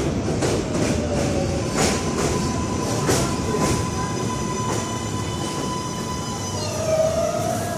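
New York City Subway L train arriving and braking on elevated track: a steady rumble with irregular wheel clacks over rail joints and a steady high tone. Near the end the traction motors' whine falls in pitch as the train slows, with a brief wheel squeal.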